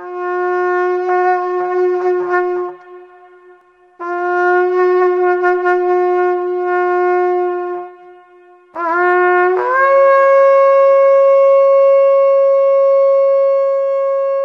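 Shofar (ram's horn) sounded in three long blasts: the first two are each held about three seconds on one low note, and the third starts on the low note, then jumps up to a higher one about a second in and is held.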